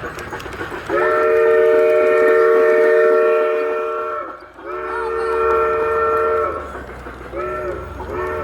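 Model steam train's chime whistle sounding two long blasts, then two short toots near the end, over the low rumble of the train running.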